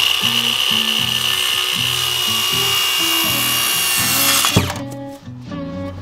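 Cordless circular saw whining up to speed and cutting through a 1x3 board for about four and a half seconds, then stopping abruptly. Knocks of the wood follow, and background music plays throughout.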